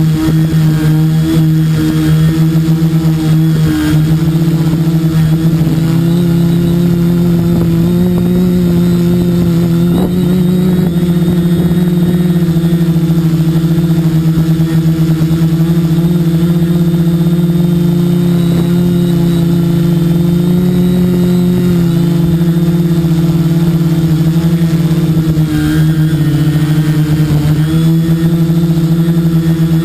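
Quadcopter's electric motors and propellers buzzing steadily at close range, heard from the onboard camera. The pitch wavers and dips a few times as the craft hovers low.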